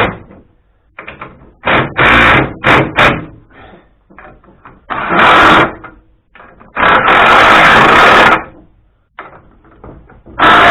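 Repeated loud bursts of a power tool, about five in all, the longest lasting about a second and a half, as the steering rack mounting bolts are run up tight against new polyurethane bushes.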